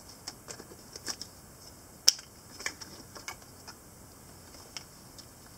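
Small cardboard cube box being opened and a plastic 4x4 speed cube (Cyclone Boys G4) lifted out: scattered light clicks and taps of cardboard and plastic being handled, the sharpest about two seconds in.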